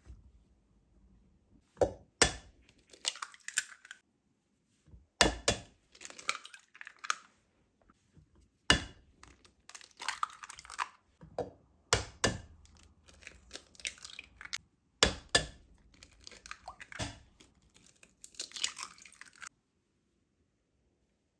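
Eggs being cracked one after another into a ceramic mixing bowl: a sharp tap for each egg, about every three seconds, then the shell crackling as it is pulled apart.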